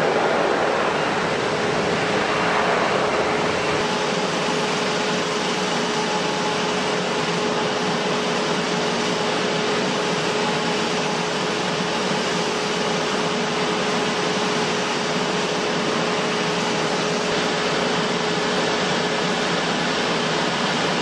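Airliner jet engines running steadily: an even rush of noise with a steady hum under it.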